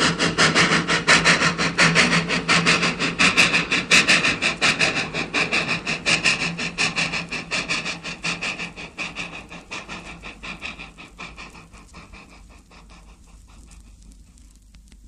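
Steam locomotive chuffing in a steady rhythm, fading away gradually until faint near the end.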